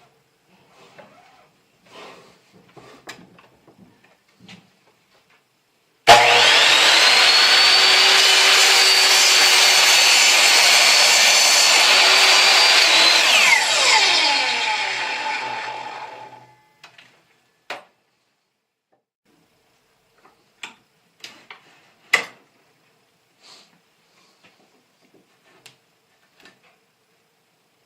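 Ryobi 10-inch sliding compound miter saw starting up suddenly and running steadily for about seven seconds through a 15-degree angle cut in a wooden board. Its motor's high whine then falls away as the blade spins down. Scattered clicks and knocks of the saw and board being handled come before and after.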